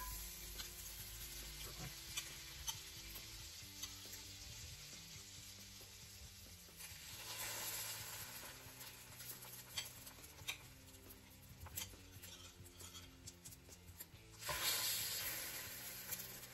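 Butter sizzling in a hot cast-iron skillet, with small clicks of metal tongs against the pan. The sizzle swells loudly about seven seconds in and again near the end as egg-soaked slices of bread for French toast are laid into the butter.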